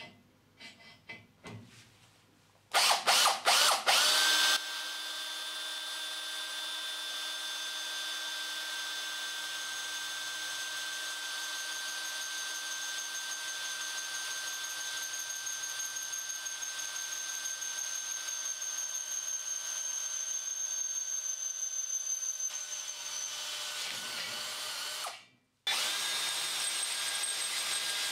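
DeWalt cordless drill in low speed driving a carbide-tipped hole saw and its pilot drill into 316 stainless steel about 2 mm thick. It starts loud and rough for a couple of seconds as the pilot bit bites, then settles into a steady motor whine as it cuts. The whine dips and stops briefly near the end, then runs on.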